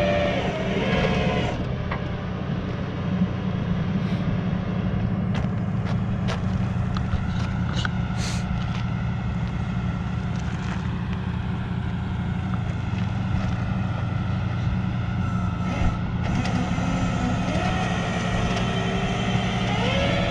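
Flatbed tow truck's engine running steadily with a low hum, with a scattering of light clicks and clanks a few seconds in.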